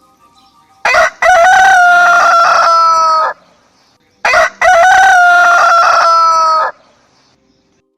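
A rooster crowing twice, two loud, long crows of about two and a half seconds each, each starting with a short note and falling slightly in pitch at the end.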